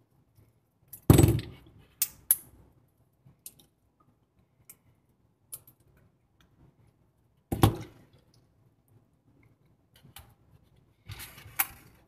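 Irregular clicks and clacks as a triangle fidget spinner is handled and its centre caps are taken off the bearing by hand. The loudest knocks come about a second in and at about seven and a half seconds, with a cluster near the end.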